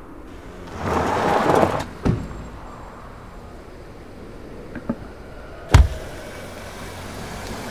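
A car's engine running low and steady, with a rushing swell of noise about a second in, a knock, and a single heavy thump near six seconds in.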